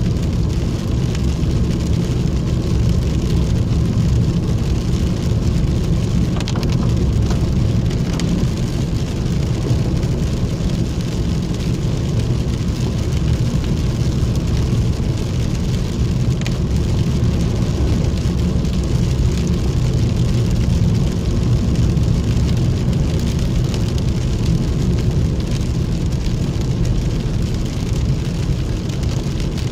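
Steady low rumble of a vehicle driving on a wet road, heard from inside the cabin, with rain falling on the vehicle.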